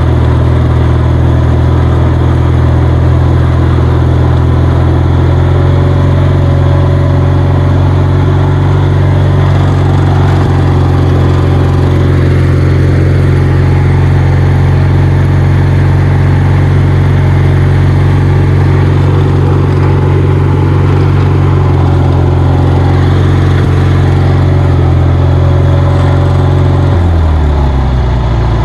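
Kohler 20 HP Magnum twin-cylinder engine on a riding lawnmower running steadily at high throttle while the mower is driven. About 27 seconds in, the engine note drops in pitch as it slows.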